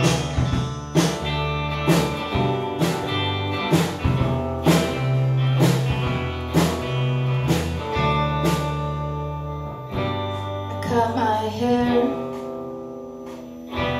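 Live band playing: two electric guitars over a drum kit that hits about once a second. About ten seconds in the drums drop out and the guitars carry on more quietly, then the band comes back in loudly right at the end.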